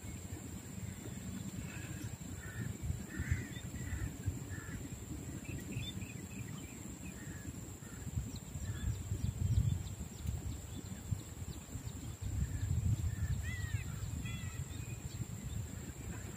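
Scattered short bird calls over a low outdoor rumble that swells about nine seconds in and again near the end.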